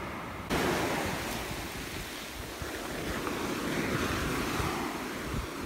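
Sea surf washing up the beach, with wind on the microphone; the noise steps up suddenly about half a second in.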